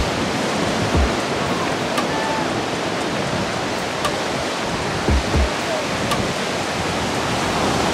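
Steady rush of ocean surf breaking on a sandy beach, with a few short low thumps about a second in and again around five seconds.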